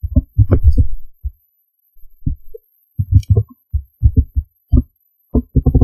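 Computer keyboard keys being typed: an uneven string of short, dull, low thuds with brief pauses between them.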